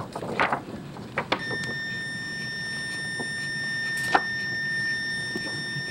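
A steady electronic alarm tone from hospital equipment starts about a second and a half in and holds on one pitch, with a few light clicks and a sharper click about four seconds in.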